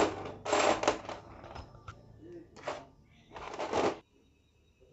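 Small metal engine parts and bolts being handled, clinking and rattling in several short bursts that stop about four seconds in.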